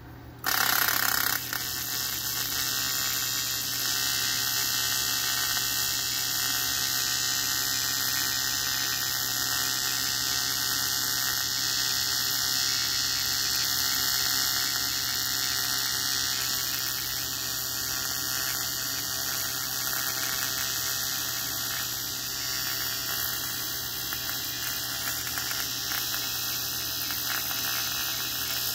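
TIG welding arc on an aluminium exhaust pipe, struck about half a second in with a brief louder crackle. It then runs as a steady buzzing hiss over a constant low hum.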